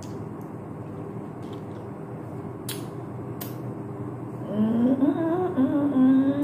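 A woman humming a wordless, closed-mouth "mmm" that rises in pitch and is held, starting about four and a half seconds in. Before it there is a steady low hum and two light clicks.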